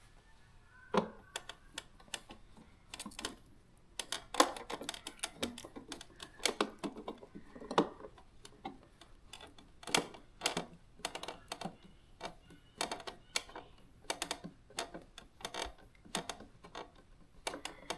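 Irregular sharp clicks and light knocks of hands and a screwdriver working on a refrigerator ice maker assembly, refastening it in the door.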